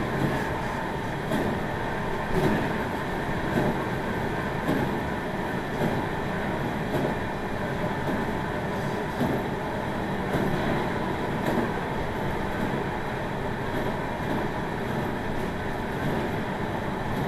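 Meitetsu 1700 series electric multiple unit (Toshiba IGBT inverter) running at steady speed: a continuous rumble, with wheels clicking over rail joints about once a second.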